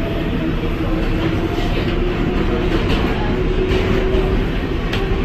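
New York City subway train running on the IRT Lexington Avenue Line: a steady, loud rumble of wheels on track with a faint steady hum.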